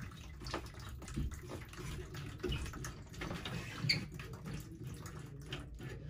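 Water trickling and dripping from a steam boiler fitting into a plastic bucket, with irregular small splashes.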